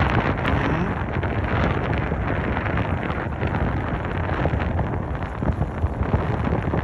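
Loud wind noise buffeting the microphone, a steady rushing roar.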